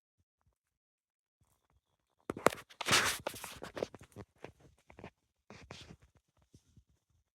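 Close rustling and crackling with many small sharp clicks. It starts about two seconds in, is loudest for the next second or so, then thins out and fades by about six seconds.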